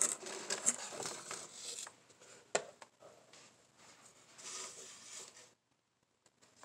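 Paper and cardboard packing rustling and crinkling as a hand rummages in a shipping box and lifts out a blister-carded diecast car, with one sharp click about two and a half seconds in and a shorter rustle near the end.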